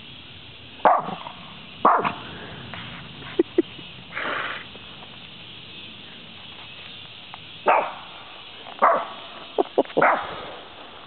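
Small dog, a Shih Tzu, barking in short single barks with uneven pauses between them, alarm barking at a deer that has run off.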